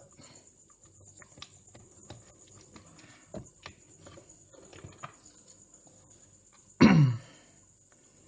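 Faint scattered clicks and rustles of small parts and tools being handled, then, a little under seven seconds in, one short loud vocal sound falling in pitch, like a cough or grunt.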